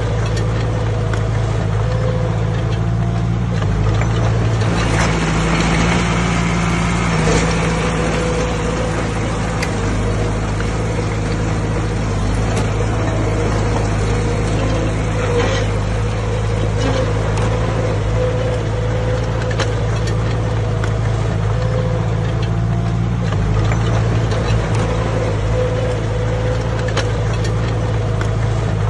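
Heavy diesel earthmoving machinery running steadily at work, with scattered knocks and clanks over the engine.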